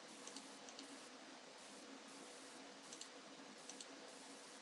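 Near silence with faint computer mouse clicks, a few short clicks in small groups, over a low steady hiss.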